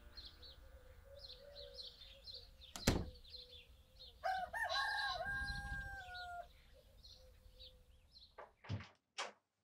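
A rooster crowing once, a drawn-out cock-a-doodle-doo starting about four seconds in, over small songbirds chirping. A single sharp thump comes about three seconds in, and a couple of short clicks near the end.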